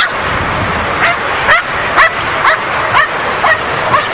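Dog barking in short, high yelps about twice a second while heeling beside its handler, over the steady hum of a stadium; a single sharp crack sounds at the very start.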